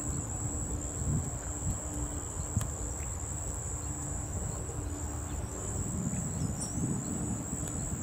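Steady high-pitched insect buzz, like a cricket or cicada, over a low rumbling background noise.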